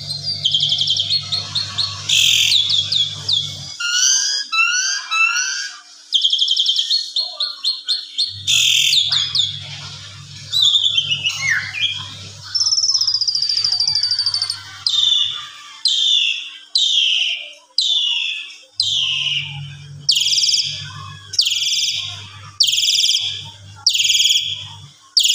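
Asian pied starling (jalak suren) singing a full, varied song of chattering and whistled phrases. About two-thirds of the way in it settles into a run of repeated falling whistles, a little faster than one a second. A low hum comes and goes underneath.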